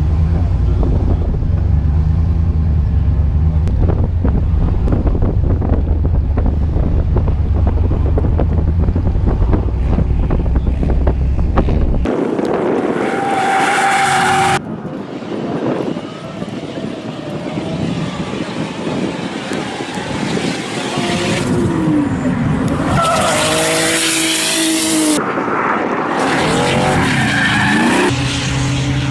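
A heavy low rumble for the first dozen seconds. Then drift cars sliding on a track: engines revving, with pitch rising and falling, over tyre squeal and a wide hiss of skidding tyres, broken by several abrupt cuts.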